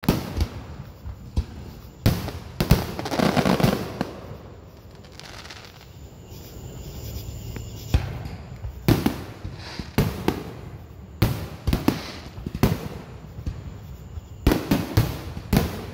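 Aerial fireworks shells bursting in irregular runs of sharp bangs. A quieter lull of a few seconds comes in the middle, then the bangs pick up again and come fast near the end.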